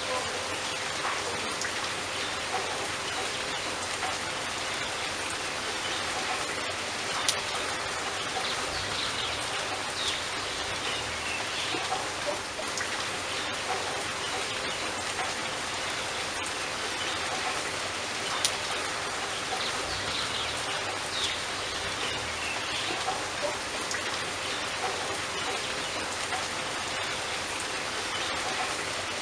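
Steady rushing and pattering of river water, with scattered droplet clicks. A few faint bird calls come through, about ten seconds in and again around twenty seconds.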